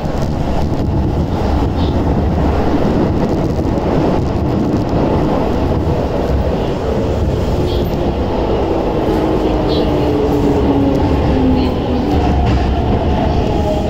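Keisei 3700 series electric train running through a subway tunnel, heard from inside the car: a loud, steady rumble of wheels and tunnel noise. In the second half the traction motors' whine glides down in pitch twice as the train slows.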